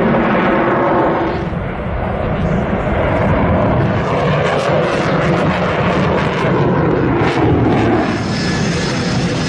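Saab JAS 39 Gripen fighter jets flying past, with loud, steady jet-engine noise. A droning tone fades out about a second and a half in, and brief crackles come through in the middle.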